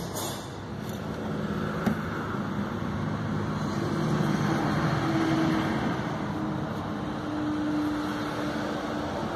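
Rebuilt Volkswagen Gol 1.0 EA111 four-cylinder engine running at idle, steady with small shifts in engine speed.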